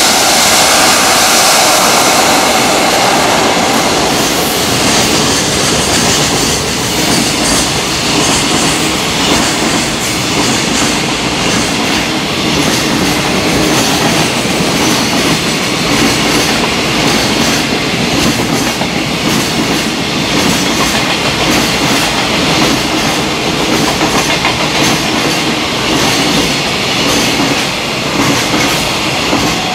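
JR Freight EF66 electric locomotive and its long string of container wagons passing at speed. The passing is loudest as the locomotive goes by at the start. After that comes a steady rushing with a quick run of wheels clicking over the rail joints as the wagons roll past.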